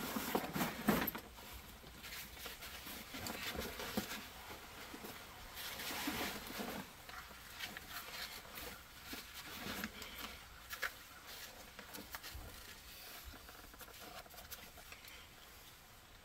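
Large military rucksack being handled while worn: faint fabric rustling and shuffling of straps, with scattered light clicks.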